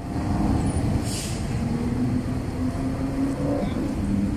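City street traffic: motorbike and car engines running and passing, a steady rumble with engine hum that shifts in pitch, and a brief hiss about a second in.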